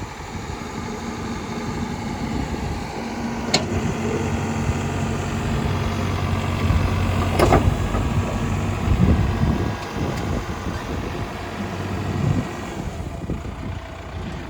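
Terex TLB840 backhoe loader's diesel engine running. It comes under load for most of the stretch as the machine works, then eases off near the end. Two sharp metallic clanks come through, one early and one about halfway.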